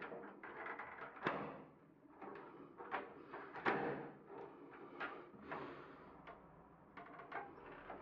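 Screwdriver scraping and clicking inside a drilled euro door lock cylinder as it is twisted to turn the lock's cam and release the lock. An irregular run of metal clicks and scrapes, the sharpest about a second and a half and three and a half seconds in.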